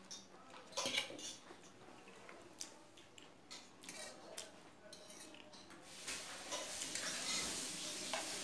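Cutlery clinking and scraping against plates while eating noodles, in scattered short clicks, the loudest about a second in. From about six seconds in a steadier hiss-like noise rises under it.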